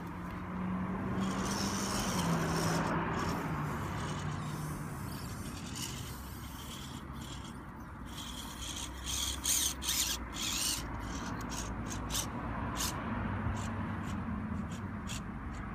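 Electric motor and drivetrain of a 1/18-scale RC rock crawler whining at crawl speed, the pitch stepping up and down in the first few seconds as the throttle changes. Tyres scrape and click over rock, with a run of sharp clicks about nine to eleven seconds in.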